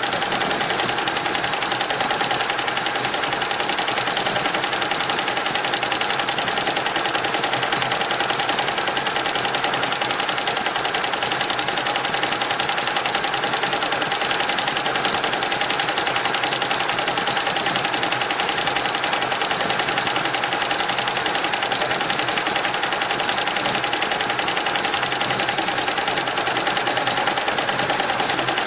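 Richpeace roll-to-roll computerized embroidery machine stitching at speed: a rapid, even clatter of needle strokes over a steady whine.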